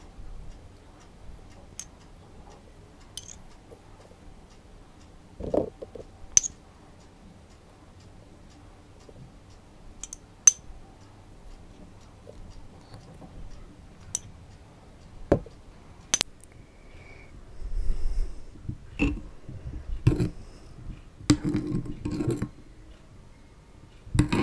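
A metal spoon clinks and taps against a small ceramic ramekin while red chili powder is spooned over panipuri puris, giving sharp clicks a few seconds apart. Near the end, the spoon swishes and knocks in a glass bowl of spicy pani water.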